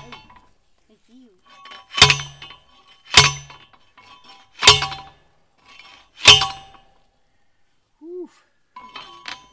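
Hand-operated post driver slamming down onto a steel fence post: four metallic clangs about a second and a half apart, each ringing briefly. The post is going into ground described as being like cement.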